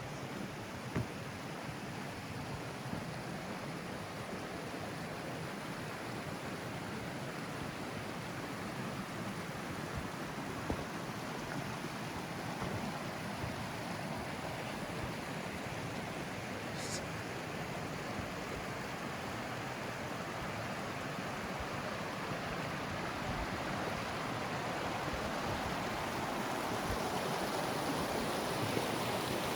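Mountain stream water rushing steadily, growing louder near the end.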